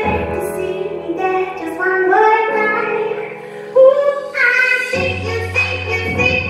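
A woman singing a melody over instrumental accompaniment, with long low bass notes underneath that change twice.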